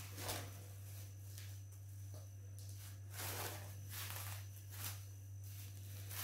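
Plastic cling film crinkling and rustling in several soft bursts as hands press and shape a log of cookie dough wrapped in it, over a steady low hum.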